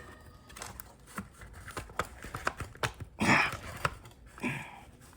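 Hand tools and hard plastic mirror parts being worked and handled, making scattered small clicks. There is a short scraping rasp about three seconds in and a weaker one near the end.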